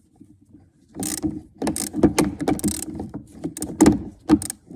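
A hand wrench tightening the clamp bolt on a lead battery terminal: a quick, irregular run of metal clicks and rattles starting about a second in.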